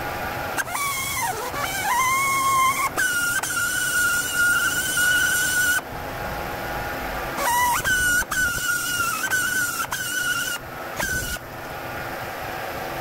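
Compressed-air blow gun blasting at a plastic radiator-grill frame: a loud hiss with a whistling tone, in two long blasts, the first starting about half a second in and the second a couple of seconds after the first stops, the whistle wavering as the trigger is feathered at the start of each.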